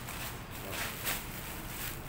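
Faint, brief rustling and shuffling noises over a low steady background hum.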